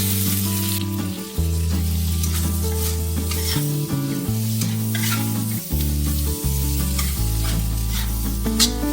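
Shredded cabbage sizzling in a hot pan as it is stir-fried, with a spatula scraping the pan now and then. Soft background music with held bass notes plays underneath.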